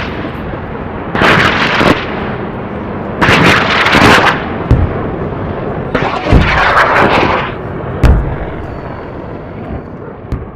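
A 12-shot sky shot aerial firework cake firing its shots one after another. There are loud bursts about every two seconds and a few sharp bangs between them, over a steady hiss of burning.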